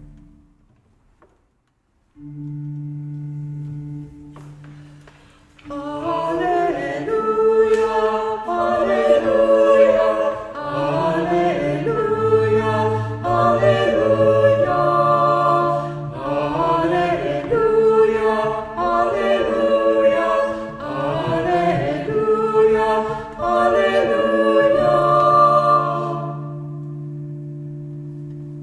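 After a brief silence, an organ sounds a held chord, and about six seconds in a choir begins singing over sustained organ notes. The singing stops near the end, leaving the held chord.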